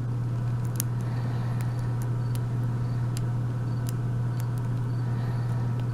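Steady low hum throughout, with faint, light, irregular clicks of a lock pick working the pins of an Abus 72/40 pin-tumbler euro cylinder.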